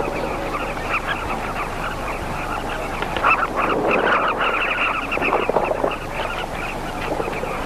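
A nesting colony of southern carmine bee-eaters calling: many short, overlapping calls, busiest and loudest from about three to six seconds in.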